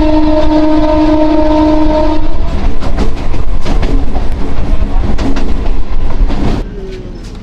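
Suburban electric train's horn sounding one steady, several-pitched blast for about two and a half seconds, then the wheels clattering loudly over rail joints and points as the train runs. The clatter cuts off near the end.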